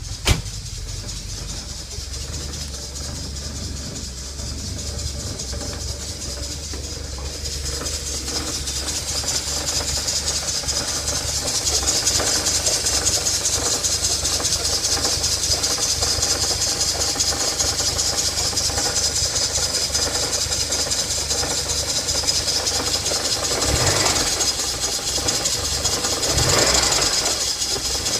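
1984 Porsche 944's 2.5-litre four-cylinder engine running on a cold start, with one sharp click at the very start. A high hiss grows louder from about eight seconds in and stays over the steady engine hum, with a couple of brief swells near the end.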